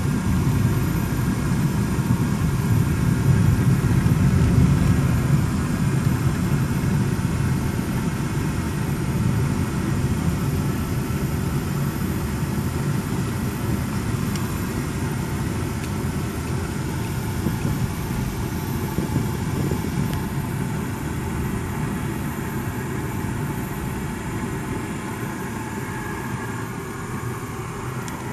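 Steady low rumble of a car driving, engine and tyre noise heard from inside the cabin, easing off a little toward the end.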